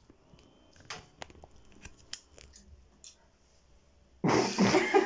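A few light clicks and snips of hair scissors being handled, then, about four seconds in, a sudden loud burst of laughter.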